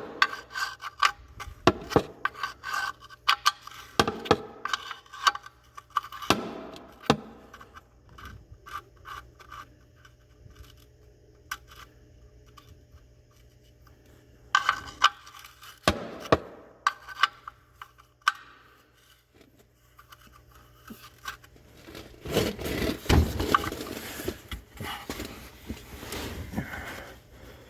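Tools and parts being handled while the oil filter and its housing are refitted: scattered clicks and clinks in two bouts, then a longer stretch of scraping and rubbing near the end.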